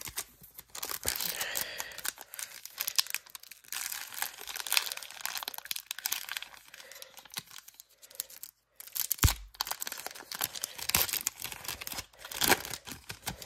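Upper Deck hockey card pack being torn open by hand, its wrapper crinkling and rustling in irregular bursts, with one dull knock about nine seconds in.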